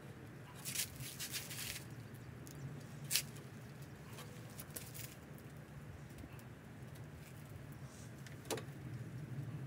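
Scattered small clicks and taps of hands and a part knocking against a car's radiator core support while a block-off plate is fitted and marked: a quick cluster about a second in, a sharper click about three seconds in and another near the end, over a steady low hum.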